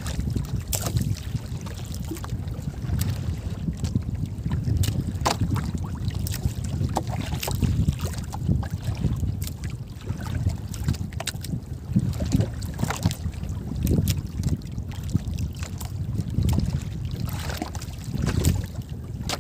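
Wind buffeting the microphone over water lapping against the hull of a small outrigger fishing boat, an uneven low rumble, with scattered short clicks and splashes.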